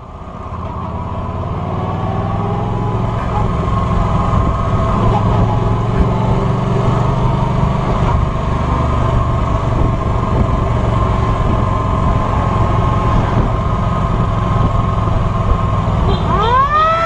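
Cruiser motorcycle engine running steadily while riding, with wind and road noise. Near the end a siren winds up, its pitch rising quickly and then holding high.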